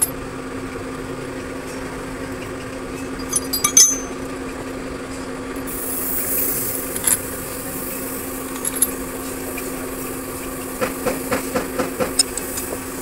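Metal clinks of tools and bolts against a truck differential's pinion bearing housing: a few sharp clinks early, single ones after, and a quick run of about eight light clicks near the end, over a steady machine hum.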